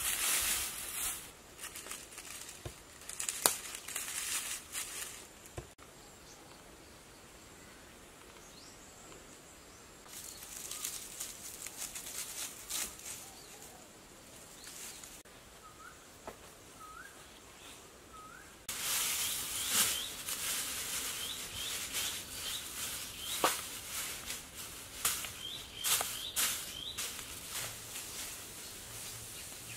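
Dry grass thatch rustling and scraping as panels are handled and set on a pole frame, with a few sharp knocks. Small birds chirp now and then in the background.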